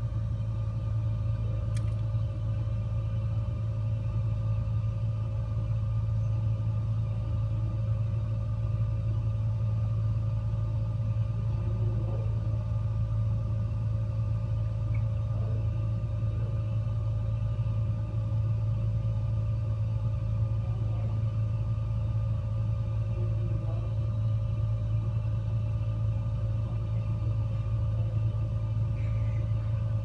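Gas fireplace running: a steady low rumble with a faint even hum above it.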